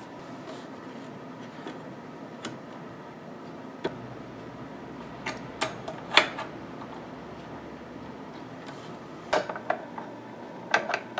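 Scattered clicks and light metal knocks, about ten of them, from adjusting the indexer and depth-of-cut setting on a Chicago Electric circular saw blade sharpener with a bandsaw blade clamped in it; the loudest click comes about six seconds in.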